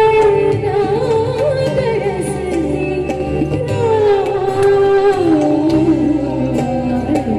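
A woman singing long, ornamented held notes that slide between pitches, in Indian light-classical style, over a live band with tabla, guitar and keyboard.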